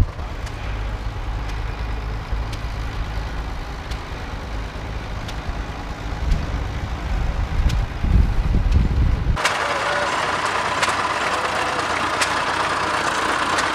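Tractor engines running at idle. About nine seconds in the sound cuts abruptly from a steady low hum to a hissier, higher-pitched running sound.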